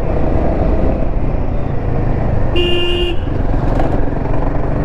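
Royal Enfield Himalayan 450 being ridden in traffic: steady engine and road noise, with a vehicle horn honking once for about half a second near the middle.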